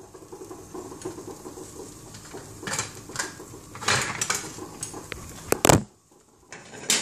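Clicks and clatters of kitchen utensils and cookware being handled over a faint steady noise, with the loudest knock about five and a half seconds in.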